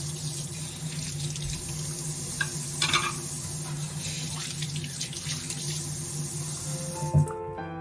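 Water running from a kitchen tap into a sink, steady, with a few short clatters about three seconds in. It cuts off near the end as soft piano music begins.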